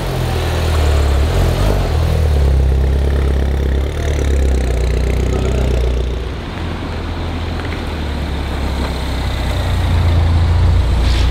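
Mini John Cooper Works Roadster's engine running as the car drives off at low speed. The rumble dips about six seconds in and grows louder near the end.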